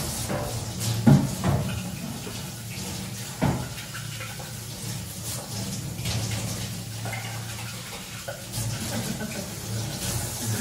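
Tap water running into a stainless-steel sink as a plastic cup is rinsed, with a few sharp knocks of plastic against the sink, the loudest about a second in.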